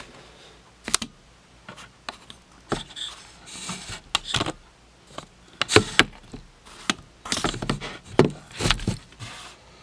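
Handling noise from a camera being picked up and repositioned close to the microphone: irregular knocks, clicks and rustles of hands and clothing against it, two of the knocks louder than the rest.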